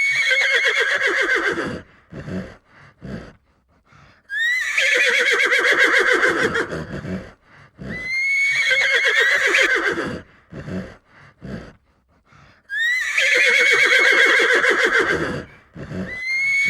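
Horse whinnying again and again: four long neighs, each opening with a high rising squeal that breaks into a wavering, falling whinny, with short breathy sounds between them. A fifth neigh begins near the end.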